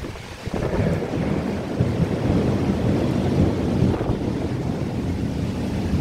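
Thunderstorm: wind and heavy rain with a deep rumble that swells about half a second in and stays strong.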